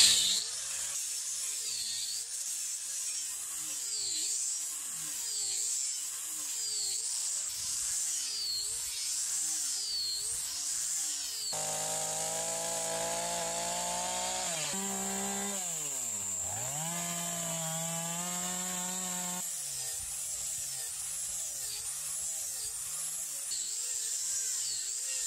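Handheld electric power tool cutting into a wooden beam, its whine rising and falling in pitch with each stroke about once a second. For several seconds midway a deeper motor note takes over, sags sharply under load and picks back up.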